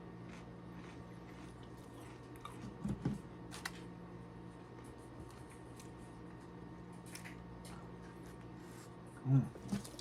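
Quiet eating and handling sounds: a few small clicks and knocks a few seconds in, over a steady low hum, with a short low mumble near the end.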